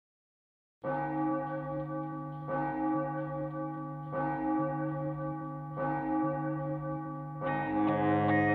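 Song intro starting about a second in: a deep bell tolling five times, each stroke ringing on until the next, about every second and a half, with more instruments joining near the end.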